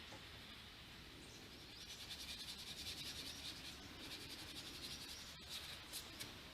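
Faint outdoor background with an insect's rapid pulsing buzz that starts about two seconds in and lasts about two seconds. A few faint ticks follow near the end.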